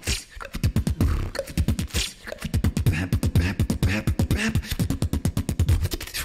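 Solo beatboxing into a handheld microphone: a fast beat of deep, downward-sweeping bass kicks, several a second, layered with sharp clicks and hissy snaps.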